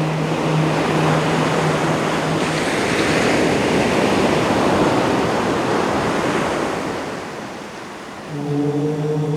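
Ocean surf: a wave rushes in, swells, and ebbs away. A low, steady chanted "Om" fades out early on, and a new one begins near the end.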